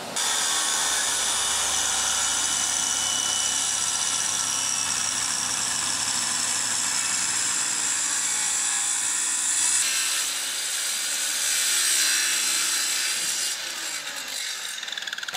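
Power saw cutting wood, running steadily with a high whine. The level drops near the end.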